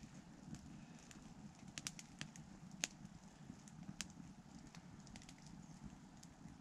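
Small wood campfire crackling faintly, with scattered sharp pops, the loudest a little under three seconds in and another at four seconds.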